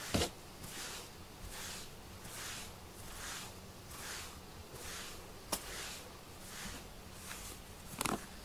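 Rubber grooming glove brushing a cat's fur: soft swishing strokes a little more than once a second, with three sharp clicks.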